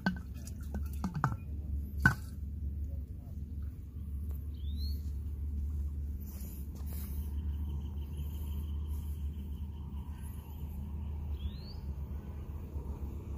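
Outdoor ambience with a steady low rumble, a few sharp clicks and knocks in the first two seconds, and two short rising bird chirps, one about five seconds in and one near the end.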